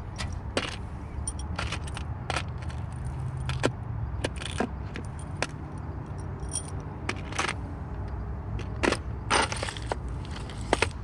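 Loose metal screws and bolts clinking and rattling as a hand rummages through them, in irregular sharp clicks, over a steady low rumble.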